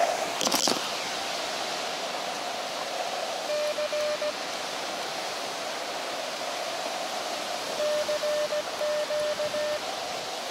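Elecraft KX2 transceiver's receiver hiss coming through a narrow CW filter, with two short runs of Morse code tones at the same pitch, one a few seconds in and a longer one near the end. Surf hisses faintly underneath.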